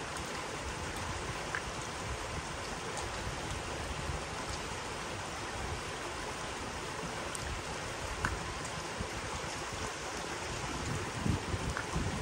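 Steady hiss of light rain, with a few scattered drop ticks, and wind gusting on the microphone near the end.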